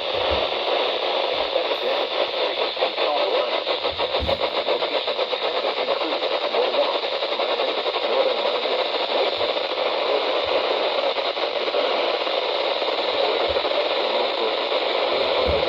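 Radio static from a NOAA Weather Radio receiver: a steady hiss with no voice on the channel, broken by a few soft low thumps.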